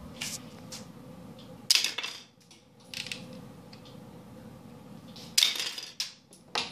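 Home-built rubber-band Lego Technic revolver being fired: two sharp plastic snaps of the hammer striking the Technic axle out of the barrel, the first about two seconds in and the second about three and a half seconds later, with lighter clicks of the mechanism between.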